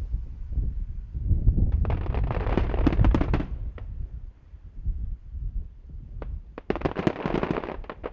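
Aerial fireworks bursting: deep booms with two spells of dense crackling, one about two seconds in and one near the end.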